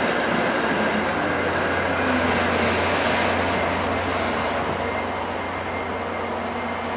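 VIA Rail LRC passenger cars rolling slowly past on the platform track with a steady rumble and a constant low hum, easing off as the train slows toward a stop.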